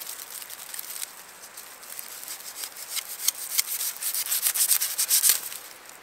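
Dry wheat stalks being rubbed and scraped in the hands, a quick run of crisp, scratchy strokes that gets louder about halfway through and stops just before the end.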